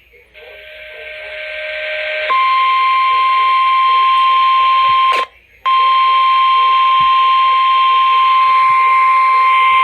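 NOAA Weather Radio warning alarm tone: one steady, loud, high beep over radio hiss, marking a severe thunderstorm warning about to be read. The hiss swells for about two seconds before the tone comes in. The tone drops out briefly about five seconds in and then carries on.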